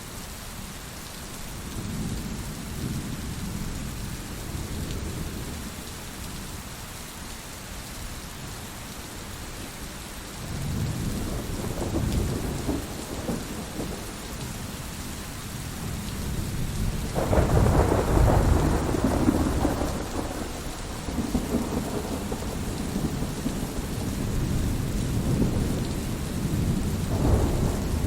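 Steady rain with rolls of thunder: low rumbles swell and fade several times, the loudest about 17 seconds in and another building near the end.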